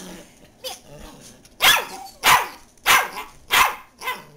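Dachshund barking: four sharp barks about two thirds of a second apart, starting about a second and a half in.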